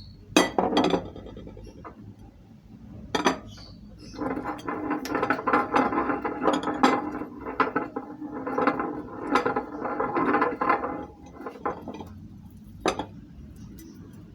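Meat grinder crunching candy: a few sharp clicks and knocks, then a dense stretch of clattering, ringing grinding from about four seconds in until about eleven, and one more sharp click near the end.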